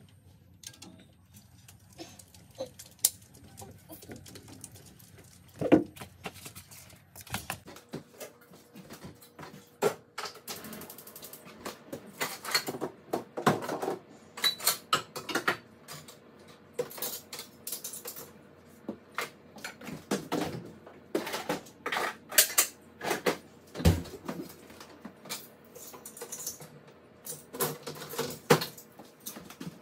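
Dishes being washed by hand at a stainless-steel kitchen sink: irregular clinks and clatter of plates, bowls and cutlery. The first several seconds hold only faint scattered clicks, then the clatter grows frequent and loud.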